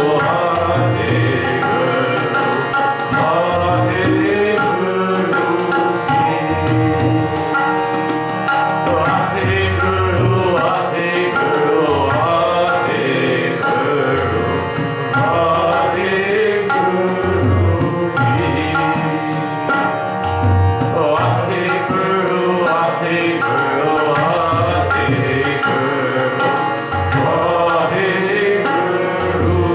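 Sikh kirtan: a hymn sung to harmonium, with the tabla keeping the rhythm and the bass drum adding deep strokes. The harmonium holds steady reedy tones under the gliding vocal line.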